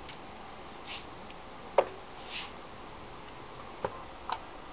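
Light clicks and scrapes of a Phillips screwdriver turning out small screws from a circuit board in a plastic control-panel housing: one sharp click a little under two seconds in, two soft scrapes, and two lighter ticks near the end.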